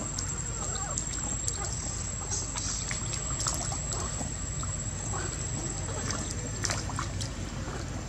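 Long-tailed macaques wading in a shallow muddy pond, the water sloshing and trickling with scattered small splashes.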